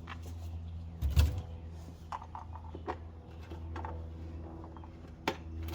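A few sharp clicks and knocks of things being handled, the heaviest a thump about a second in, over a steady low hum.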